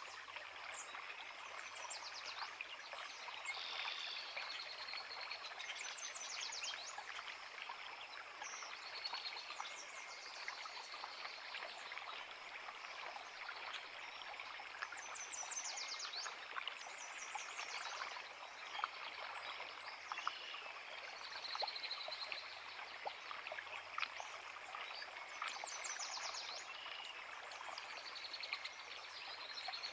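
A forest creek babbling steadily, with songbirds singing short phrases of quick high notes every few seconds over the water.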